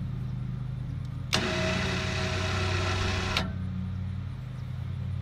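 A vehicle engine idling steadily, and about a second in an electric winch motor runs for about two seconds, starting and stopping abruptly.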